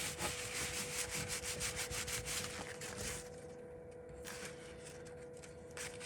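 Rubbing and light scraping of small phone parts being handled, with scattered small clicks, over a faint steady tone. The handling quietens for about a second around the middle, then picks up again.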